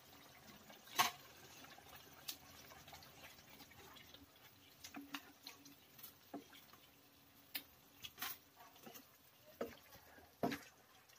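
Plastic spoon stirring a thick tomato-sauce stew of chicken and vegetables in a nonstick frying pan. Irregular soft clicks, knocks and wet stirring sounds come through, the loudest about a second in.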